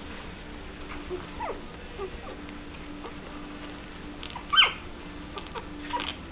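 Three-week-old Chinese Crested puppies whimpering and squeaking as they play: a few short cries that slide down in pitch, the loudest a little past the middle, with small scuffling clicks between them. A faint steady hum underneath.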